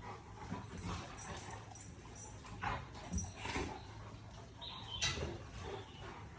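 A dog making a few short, separate sounds, the loudest about five seconds in.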